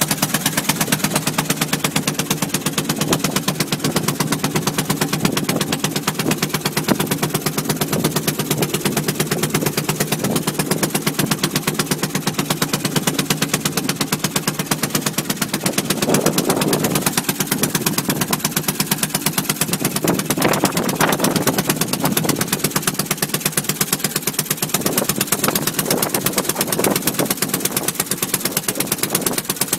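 A 3 hp Atlantic single-cylinder make-and-break marine engine running steadily, firing in a fast, even train of sharp pops.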